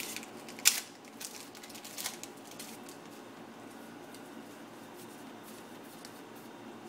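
Yu-Gi-Oh! booster pack being handled: the foil wrapper crinkling as the cards are pulled out, then the cards being slid and flicked through by hand. Sharp crackles come in the first couple of seconds, the loudest just under a second in, and the handling is fainter after that.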